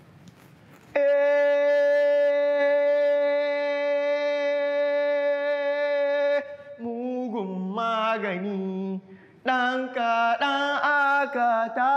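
A man chanting: one long held note for about five seconds, then shorter wavering sung phrases, broken off briefly near the end before the chant resumes.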